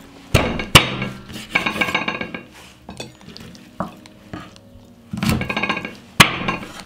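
Chef's knife chopping the leg tips off a raw whole chicken on a bamboo cutting board: sharp knocks of the blade striking the board, the loudest about a second in and another near the end, with rasping cutting sounds in between.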